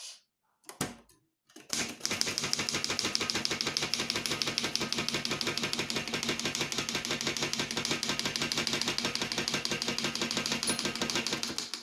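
Manual typewriter keys struck in a fast, even run, many strokes a second, for about ten seconds, typing out the line that closes the table. A couple of single knocks come just before the run starts.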